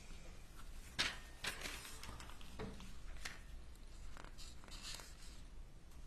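Sheets of paper being handled and leafed through at a lectern: scattered soft rustles and light knocks, the loudest about a second in, over faint room hum.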